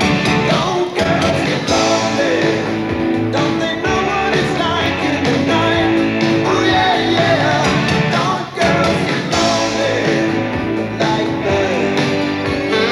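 Male lead vocalist singing over a live band, with guitar prominent in the accompaniment.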